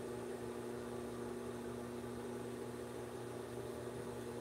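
Steady low electrical hum, a few unchanging tones over a faint hiss.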